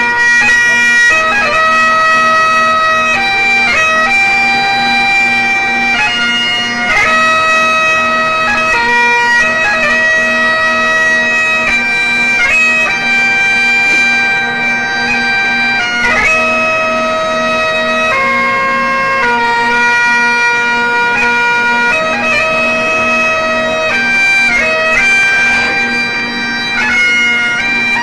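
Great Highland bagpipe playing a tune: a steady low drone sounds throughout while the melody moves from note to note above it.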